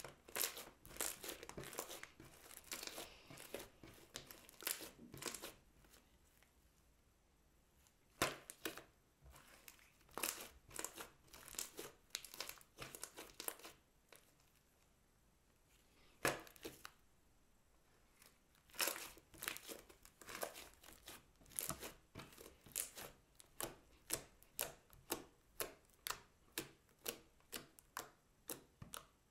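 Clear glitter slime squished, folded and stretched by hand, making sticky crackling and popping sounds in spells with short quiet pauses. Near the end comes a run of quick, evenly spaced pops as fingers poke holes into the slime.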